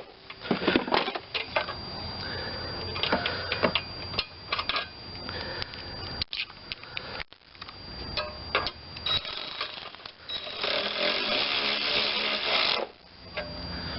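Hand socket ratchet clicking and metal tools clinking as the carburetor mounting bolts are run in on a Briggs and Stratton mower engine, with a denser, louder stretch near the end.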